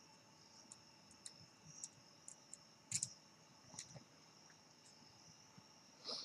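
Faint, scattered clicks and light taps of a screwdriver and small screws being handled while the circuit board of a handheld multimeter is unscrewed, the clearest click about three seconds in. A faint steady high tone runs underneath.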